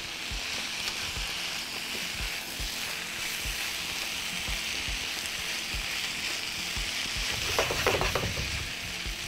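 Fish fillet strips, freekeh and vegetables sizzling in a frying pan while being stirred and turned with a spatula, with soft taps of the spatula against the pan.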